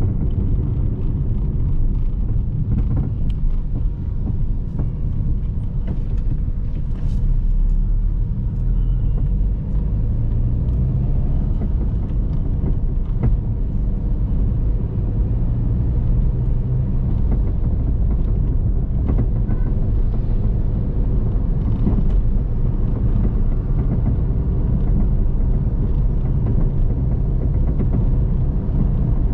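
Steady low rumble of engine and road noise, heard from inside a moving car's cabin.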